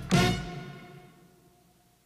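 Music: a final chord struck just after the start, ringing out and fading away almost to silence over the next second and a half.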